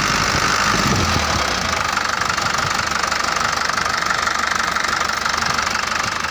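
Mitsubishi Canter truck's diesel engine running steadily, with no revving.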